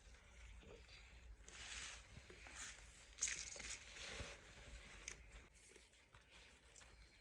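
Faint, irregular rustling with a few light knocks and clicks, the sharpest about three seconds in.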